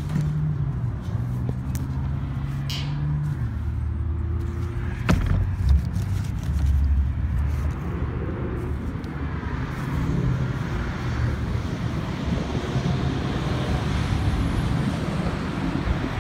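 Steady low rumble of road traffic, with a vehicle engine humming in the first few seconds and a single sharp click about five seconds in.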